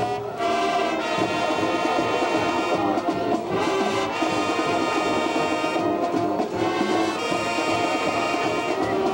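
Marching band playing a brass-heavy piece, with sousaphones and trumpets, continuously and at full volume.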